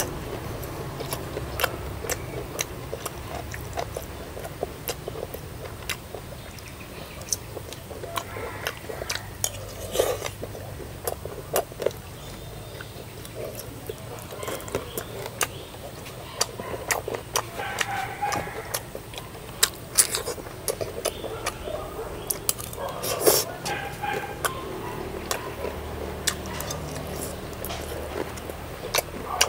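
Dishes and cutlery clinking and knocking at an irregular pace, as at a meal being eaten, with short stretches of faint voices.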